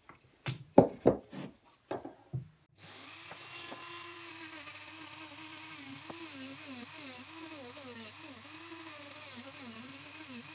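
A handful of sharp knocks in the first couple of seconds, then a handheld rotary tool starts and runs steadily, sanding wood with a small sanding drum; its motor pitch dips and rises as the drum is pressed into the carving and eased off.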